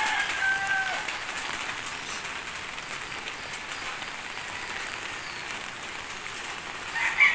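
Steady rain falling, a continuous even hiss. Near the end a rooster begins to crow.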